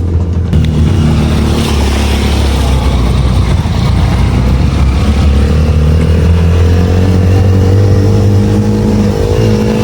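Vehicle engine running while driving on a rough road, with a steady rumble; the engine note shifts in pitch a few times.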